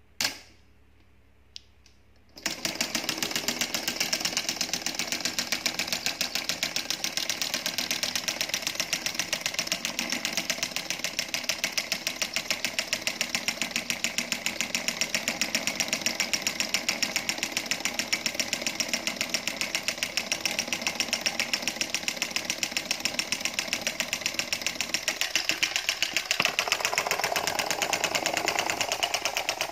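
A homemade solenoid engine, its coil pulling a syringe-plunger piston that turns an aluminium flywheel, starts about two seconds in, just after a sharp click at the start, and runs with a fast, even mechanical clatter. The clatter changes in tone near the end.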